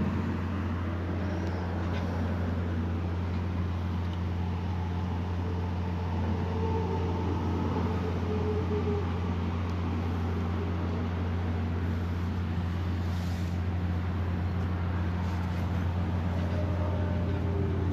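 Steady low hum of a running engine or machine, holding one pitch without change.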